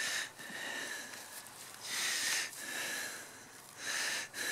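Breathing: three short breathy puffs, about two seconds apart.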